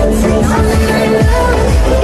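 Background music with a strong, steady bass line.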